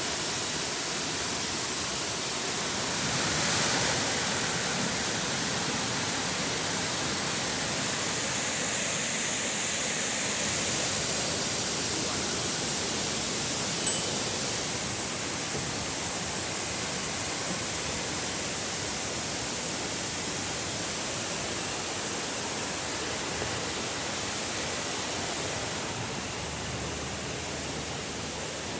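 Brandywine Falls, a 65-foot waterfall plunging over sandstone and shale ledges, rushing steadily, with a brief swell a few seconds in.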